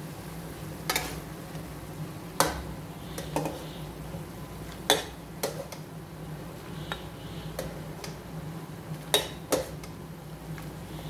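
Metal ladle knocking and scraping against an aluminium pan and a glass dish while stir-fried vegetables and sauce are ladled out: sharp, separate clinks every second or so over a steady low hum.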